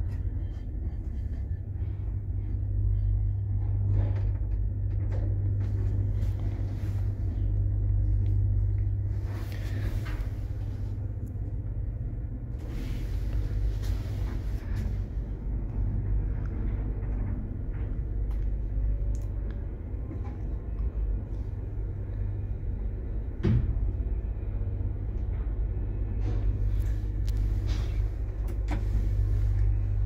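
Passenger lift car travelling between floors: a steady low hum and rumble from the drive and the ride, with occasional light clicks and knocks from the car and shaft.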